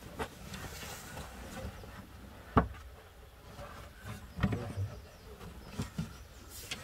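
Wooden knocks and bumps from a plank table being carried and handled, with one sharp knock about two and a half seconds in and a few more knocks around four and a half and six seconds in.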